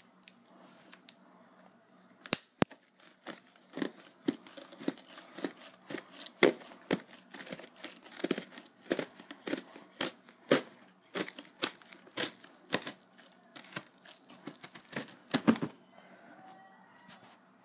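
Packing tape along a cardboard box's seam being slit and torn with a pen tip: a run of short, sharp scratching and tearing strokes, about two a second, stopping shortly before the end.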